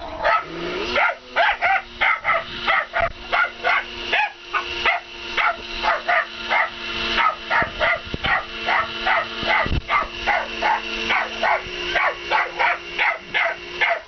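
Small dog barking rapidly and without pause, about three barks a second, at a running kitchen blender. The blender's motor hums steadily underneath and changes pitch twice.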